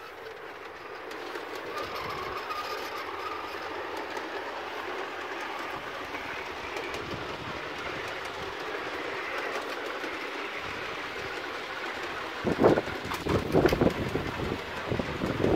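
Playmobil 4010 battery radio-controlled toy train running on garden-railway track: a steady whir of its motor and wheels on the rails. From about twelve seconds in, irregular gusts of wind buffet the microphone.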